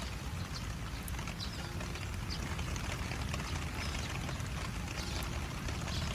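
Steady rain falling, with a scattering of sharp drips and taps.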